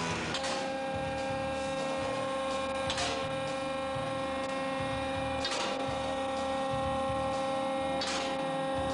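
A steady hum of several held tones, with a short swish about every two and a half seconds, four times.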